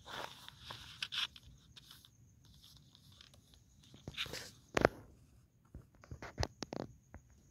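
Paste-wet paper poster being pressed and smoothed by hand onto a wooden pole: faint rustling with scattered short taps, a sharp one about five seconds in and several more near the end.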